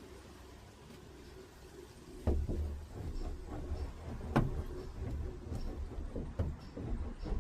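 Irregular knocks and low thuds on a van's sheet-metal body while sound-deadening mat is pressed onto the roof. They start about two seconds in, with one sharp knock about halfway through.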